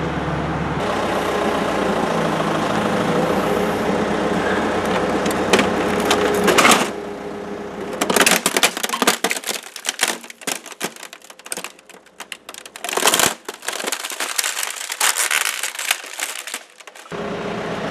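Plastic casing of an HP OfficeJet Pro 8500A Plus inkjet printer cracking and splintering as a digger bucket presses down and crushes it. First the digger's engine runs steadily with a few cracks. Then, about eight seconds in, comes a long run of sharp snaps and cracks as the printer breaks apart.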